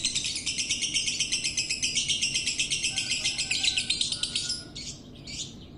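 Lovebird singing a long, fast, unbroken run of high chattering chirps, which breaks off about four and a half seconds in and is followed by a couple of short chirps.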